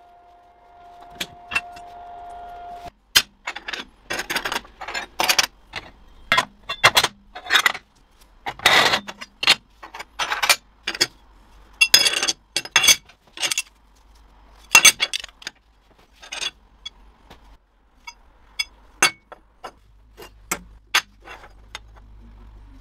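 Stainless steel strips handled and set down on a steel welding table: an irregular string of sharp metallic clinks and taps. A steady hum runs underneath for the first three seconds.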